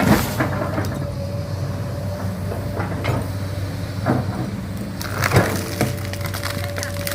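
Komatsu PC200-8 excavator's diesel engine running steadily with a thin whine at times, while tree wood cracks and snaps about four times as the excavator brings down a cempedak tree, the loudest crack about five and a half seconds in.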